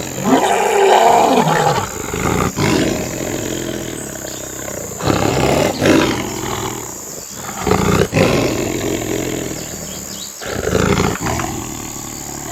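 Lions fighting, roaring in loud repeated bursts a few seconds apart.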